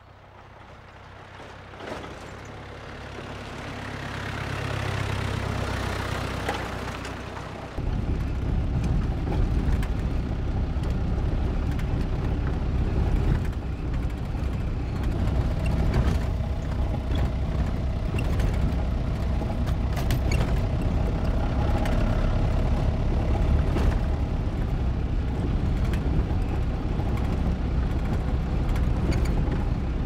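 A vehicle engine grows louder over the first few seconds as it comes along the road. About eight seconds in, this cuts to a louder, steady engine rumble with road noise, heard from inside the cab of an old truck or van while it drives.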